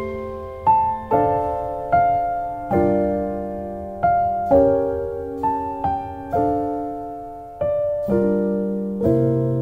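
Jazz piano playing chords, a new chord struck about once a second and each left to fade.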